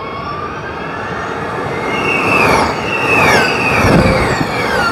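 A pack of Gen3 Formula E race cars passing at speed, their electric drivetrains whining high. The whines fall in pitch one after another over a rush of tyre and road noise, growing louder from about two seconds in as the cars come close.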